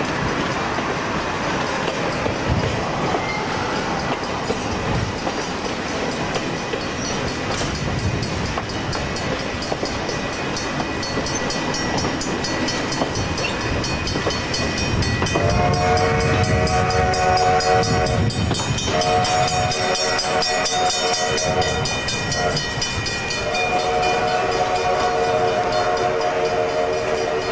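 Passenger train running, with a steady rumble of wheels on the rails. About halfway through, the locomotive's horn sounds three long chord blasts, warning a road crossing.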